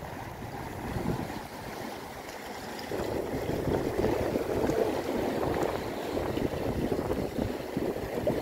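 Sea waves washing over and against shoreline rocks, a steady rushing wash that grows louder about three seconds in.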